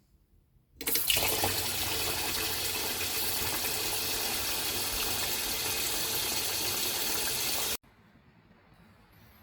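Water running hard in a steady stream, starting about a second in and cutting off abruptly near the end.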